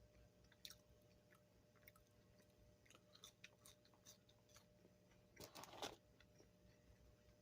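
Faint chewing of fast-food fries, with scattered small mouth clicks and a short, louder crunch a little after halfway through.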